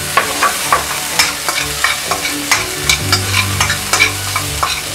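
Chopped shallots, tomato and curry leaves sizzling as they sauté in hot oil in a stainless steel kadai, stirred with a spoon that scrapes and taps against the pan many times.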